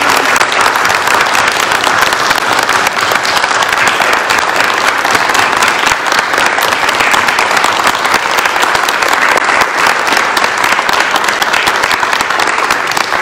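Congregation applauding: a dense, steady patter of many people's hand-clapping that holds loud and even throughout.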